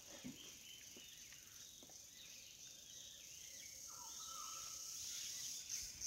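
Faint forest ambience: a steady high-pitched insect drone with scattered bird chirps, and a short whistled bird note about four seconds in. Near the end the insect drone starts to pulse, about three times a second.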